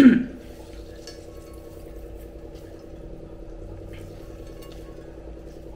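Small clinks and ticks against a stainless-steel vessel as fresh paneer is squeezed in a muslin cloth, draining its last water, over a steady low hum.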